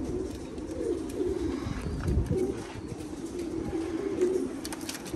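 Domestic pigeon cooing over and over, a run of low coos that rise and fall in pitch.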